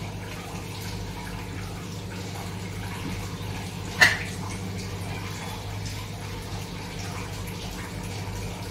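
Steady rain falling, with a steady low hum under it and one sharp clink about four seconds in.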